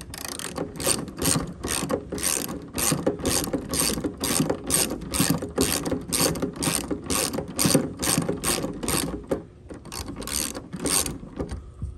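3/8-inch Craftsman ratchet on a long extension clicking in quick, even strokes, about three clicks a second, as it backs out a headlight mounting bolt. The clicking stops briefly about three-quarters of the way through, then resumes.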